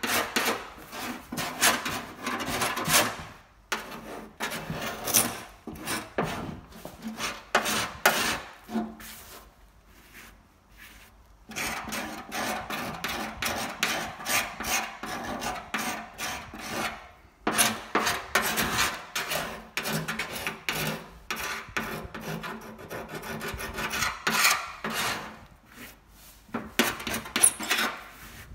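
Repeated rasping, rubbing strokes of a hand tool working the paint on a VW Beetle's metal engine lid during chemical stripping. The strokes come in runs, with a longer pause about ten seconds in.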